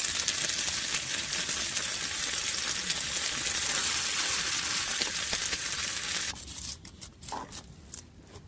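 Food sizzling and frying in a pan, a steady hiss full of small pops, which cuts off suddenly about six seconds in; after that, only a few faint clicks and knocks.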